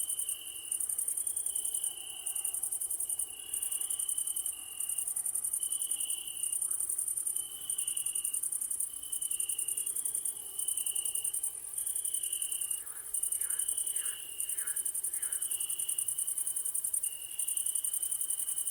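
Crickets chirping in a dense, high trill that pulses in bursts about a second long with brief gaps, over a steady second insect call that alternates between two pitches. A few faint, short frog croaks come about two-thirds of the way through.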